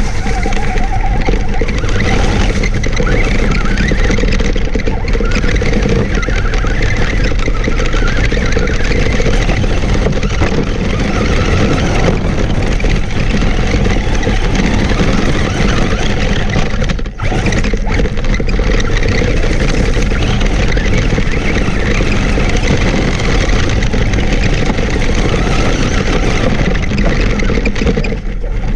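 Traxxas Stampede RC monster truck driving over dry leaves, gravel and rocks, heard from a camera mounted on the truck: loud, steady drivetrain noise mixed with the rattle and crunch of the tyres on stones, dropping out for a moment about two-thirds through.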